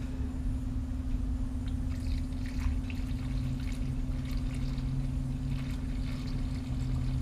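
Engine coolant poured from a plastic jug into a funnel in the radiator filler, running and trickling as the funnel fills, with a steady low tone from about three seconds in. A steady low hum runs underneath.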